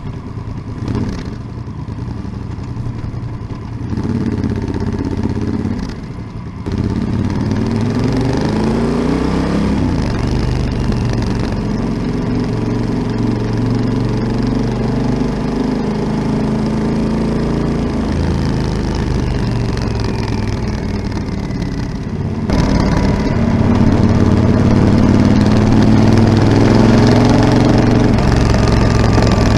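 Yamaha XT1200ZE Super Ténéré's parallel-twin engine running through a Delkevic 343 mm oval carbon-tipped aftermarket exhaust. The revs rise several times near the start, then hold steady, and the sound steps up louder about two-thirds of the way in.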